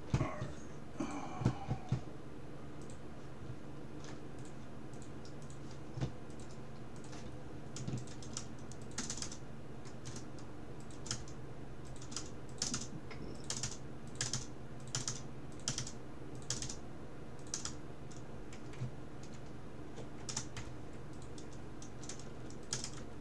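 Typing on a computer keyboard: uneven runs of keystrokes with short pauses, as a list of names is typed out.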